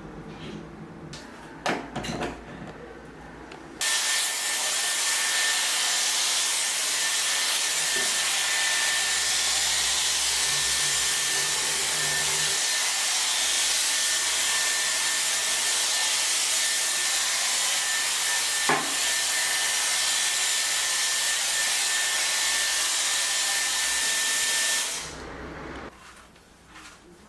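A small electric appliance running with a steady rushing noise and a constant high whine, switched on about four seconds in and off again about 25 seconds in. A few knocks come before it starts.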